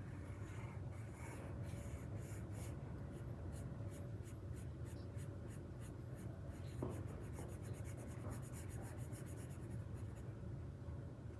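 Sharpie permanent marker scratching on paper in quick back-and-forth strokes as an area is coloured in solid, the strokes getting faster near the end and then stopping, over a low steady hum.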